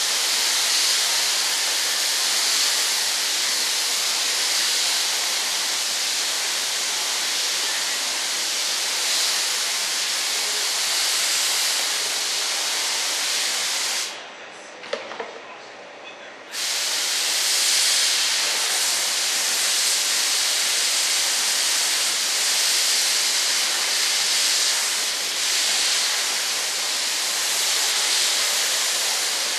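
Gravity-feed air spray gun hissing steadily as it sprays primer. The hiss cuts off for about two seconds midway, with a few faint clicks, then starts again.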